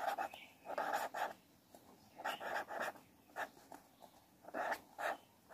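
Pen scratching on paper as a word is handwritten, faint, in short strokes with brief pauses between them.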